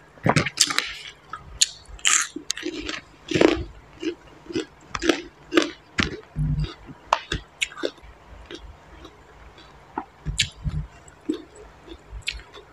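A person chewing a mouthful of green papaya salad close to a clip-on microphone: irregular crunches and mouth clicks, dense for the first six seconds or so and then thinning out, with a couple of low thumps.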